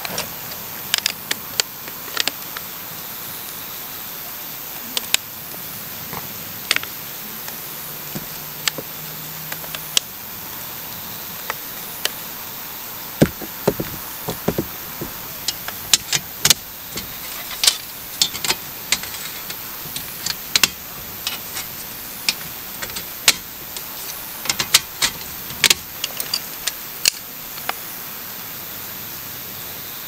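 Black perforated metal camp-table panels being handled and fitted together: irregular sharp metal clicks and clacks, more frequent in the second half, over a steady background hiss.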